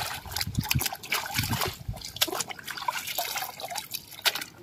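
A toy school bus swished back and forth by hand in puddle water, making irregular splashing and sloshing with drips.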